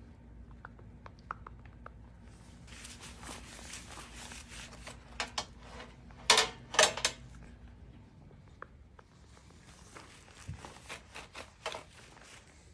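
Gloved hands handling a raw pork shoulder on a wire rack set in a metal sheet pan: soft wet rubbing and shuffling noises, with a couple of louder short scrapes and knocks a little past the middle as the meat is lifted and turned.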